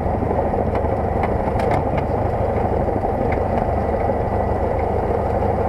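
Cessna 172's piston engine and propeller running steadily at low power, with a rush of air, as the plane rolls along the runway.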